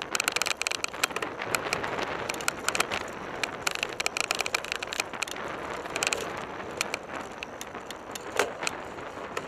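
Mountain bike riding over a rough, dry dirt track: an irregular clatter of knocks and rattles as the bike and the mounted camera jolt over bumps, over the noise of the tyres on the dirt.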